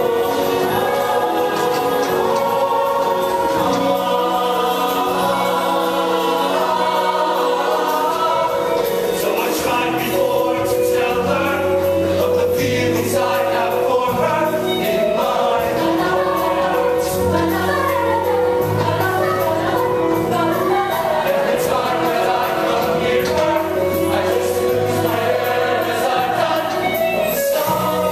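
Mixed-voice show choir singing in harmony, with low bass notes joining about four seconds in.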